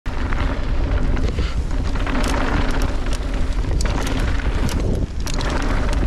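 Wind buffeting the camera microphone on a mountain bike riding fast down a dry dirt trail, with tyres rolling over loose dirt and gravel and many sharp clicks and rattles from the bike.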